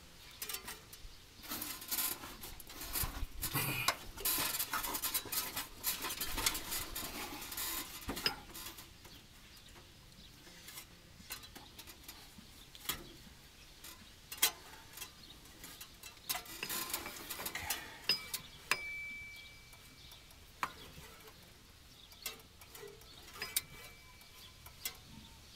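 Ratchet wrench clicking and metal tools clinking as the Ford 460 big-block is turned over by hand to set a valve for adjustment. Irregular clicks, busy for the first eight seconds or so, then sparse.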